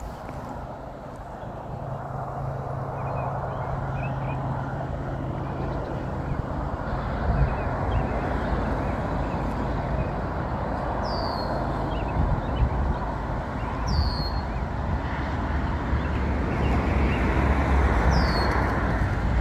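Distant GE ES44AC (GEVO) diesel locomotive with its V12 engine in notch 8, full throttle while crawling at low speed, a steady low drone growing gradually louder as it approaches. Three short high chirps falling in pitch sound over it.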